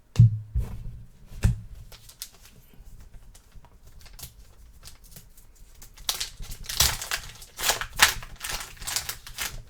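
Trading cards being handled at a table: a few sharp knocks in the first second and a half, then a run of quick, crinkly scraping and rustling strokes from about six seconds in.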